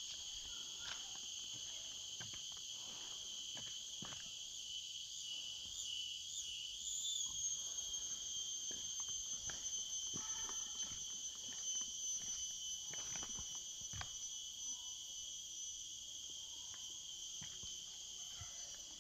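Steady, high-pitched chorus of tropical rainforest insects, with irregular footsteps on the forest floor.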